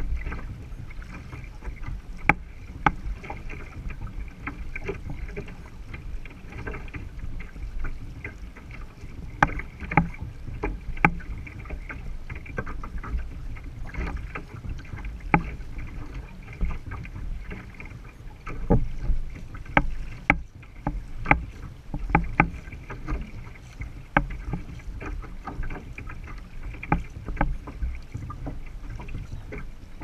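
Paddles stroking through the water of a two-person outrigger canoe, with water sloshing and slapping against the hull. Sharp, irregular knocks and splashes sound over a steady low rumble.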